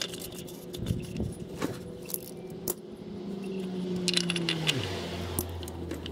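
Light clicks and clinks as a cartridge oil filter canister is threaded onto the engine by hand, with tools shifting about. A low hum drops in pitch a little past halfway, then holds steady.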